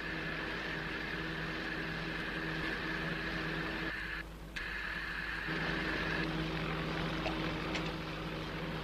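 A steady engine drone with a high whine riding over it. The sound dips briefly about four seconds in, and the whine drops out a little after six seconds.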